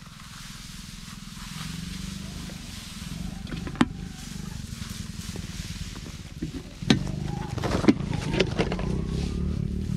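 Wind buffeting the microphone as a low rumble, with rice plants rustling as they are brushed aside. There are a few sharp clicks, the brushing busiest in the last few seconds.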